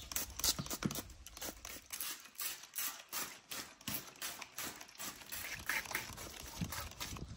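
A plastic trigger spray bottle being pumped, short spray bursts and trigger clicks in quick succession.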